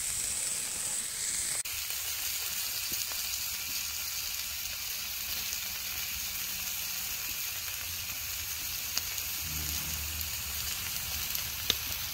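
Chicken pieces sizzling on a cast-iron grill grate over a wood fire, a steady hiss, with a couple of brief sharp pops in the second half.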